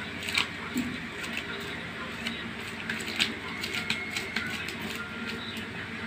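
Knife scraping and cutting at a raw parrotfish on a wooden cutting board while cleaning it: irregular scrapes and clicks.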